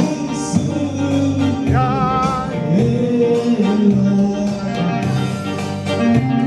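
Live music through a PA speaker: a voice singing with vibrato over an instrumental accompaniment with a steady bass line.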